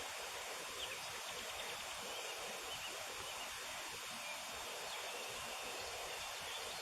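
Steady outdoor wind hiss, with a few faint high bird chirps.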